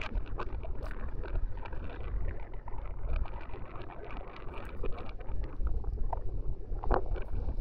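Wind buffeting a handheld camera's microphone: a gusting low rumble with scattered crackles and small clicks.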